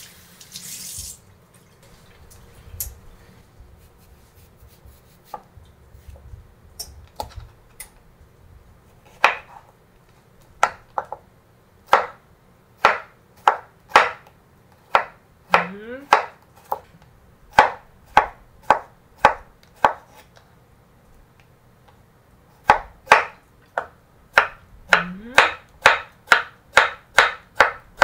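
Tap water runs briefly at the start, then a kitchen knife cuts a cucumber on a wooden cutting board: single spaced chops at first, a short pause, then a faster even run of chops, about two to three a second, near the end.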